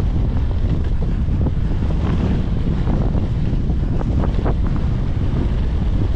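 Strong wind buffeting the microphone of a camera on a mountain bike, a loud steady low rumble. Through it come light clicks and knocks from the bike rolling over a wooden plank boardwalk, several close together about four seconds in.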